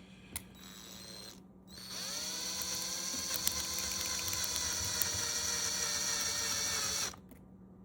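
Small power drill with a 5/64-inch bit spinning up about two seconds in, running at a steady pitch for about five seconds, then stopping. It is drilling out a stripped screw in a plastic action figure, with the bit catching on the plastic rather than the screw's metal.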